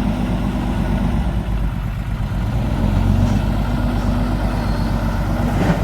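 Diesel dump truck engine running steadily at idle, with a short knock right at the end.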